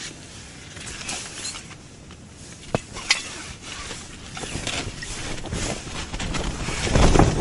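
Handling noise in an ice-fishing tent: clothing and tent fabric rustling and scraping as someone moves about, with two sharp clicks about three seconds in and the loudest rustle near the end as hands reach across the tent.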